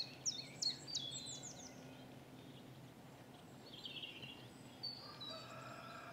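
Wild birds singing in the background: a rapid run of sharp, high, falling notes in the first second, a brief warble a few seconds later, then a longer, lower falling whistle near the end.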